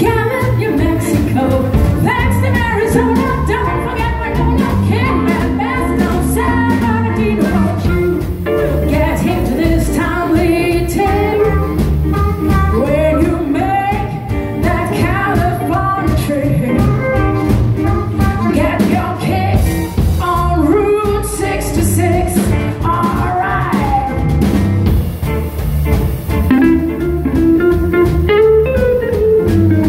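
Live blues band playing: a woman sings the lead over electric guitar, plucked double bass and drum kit.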